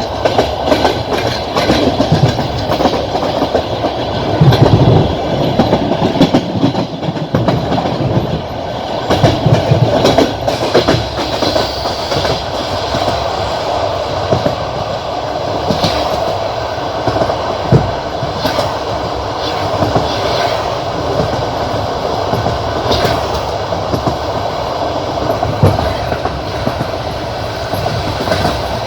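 Passenger train carriage running along the track, its wheels clattering over rail joints, heard from the carriage window. The clatter swells louder a few times in the first third.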